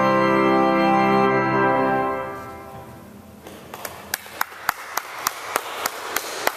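Pipe organ holding a full chord that is then released and dies away in the chapel's reverberation about two and a half seconds in. After that, a soft hiss with a regular clicking, about three clicks a second.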